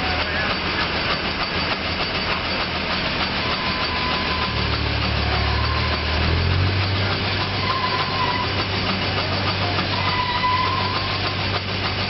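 Browning steam crane running: steam hissing over a steady low machinery hum that shifts slightly up in pitch about six seconds in.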